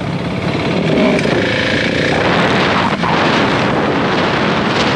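Motorcycle engine running, with a short dip in level about three seconds in.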